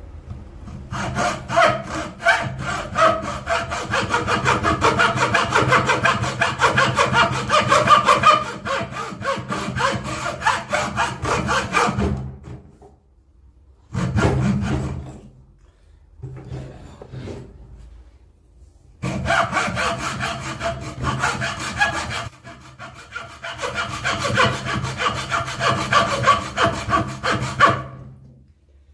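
Hand saw cutting through wood in rapid back-and-forth strokes. A long run of sawing is followed by two short spells, then another long run that stops near the end.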